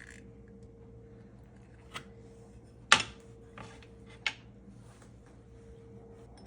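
A few light clicks and knocks of kitchen items being handled on a counter, the loudest about three seconds in, over a faint steady hum.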